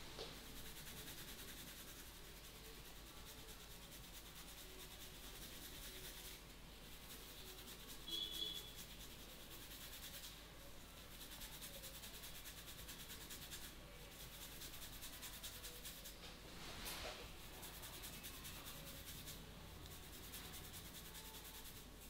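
Hands rubbing and massaging over hair and scalp: a soft, steady rubbing hiss, with two brief louder strokes, one about a third of the way through and one about three-quarters through.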